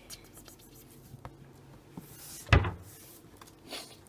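Puppy play with stuffed toys on a hardwood floor: light scuffs, rustles and small clicks, with one loud dull thump about two and a half seconds in.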